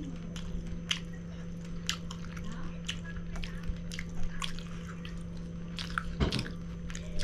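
Close-up eating sounds: chewing with wet mouth clicks and lip smacks, coming irregularly several times a second, over a steady low hum.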